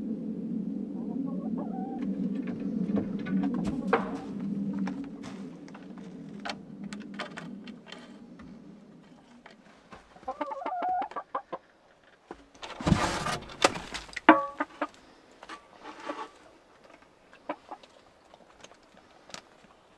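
Domestic hens clucking, with one drawn-out call about ten seconds in and a loud flurry about thirteen seconds in as a hen flaps down off the coop ladder, followed by short clucks. A low steady hum fades out over the first eight seconds.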